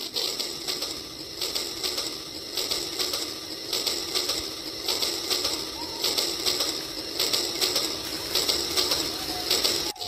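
RailKing battery toy train running along its plastic track, a steady mechanical rattle of fast clicks from its small motor, gears and wheels.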